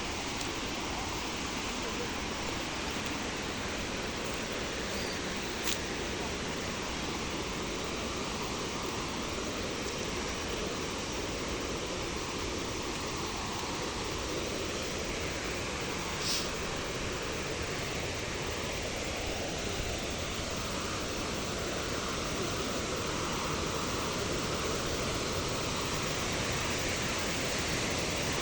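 Steady rush of a waterfall, an even wash of water noise, with two brief clicks about a third and just over halfway through.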